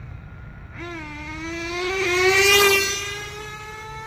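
Kyosho Inferno GT 1:8 on-road RC car's nitro engine screaming at high revs as the car speeds past, its whine rising in pitch and loudest about two and a half seconds in, then holding steady as the car pulls away.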